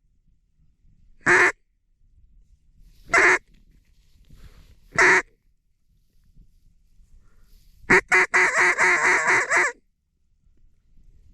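Duck call blown by a hunter: single loud hen quacks about every two seconds, then a fast run of quacks for almost two seconds near the end.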